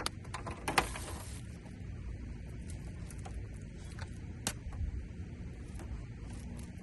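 Scattered small clicks and light rattles of hands working wiring connectors, with a louder clattering click about a second in and a sharp tick near the middle, over a steady low rumble.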